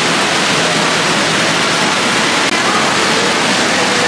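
Water from a tiered decorative fountain pouring and splashing into its pool: a steady rush of falling water.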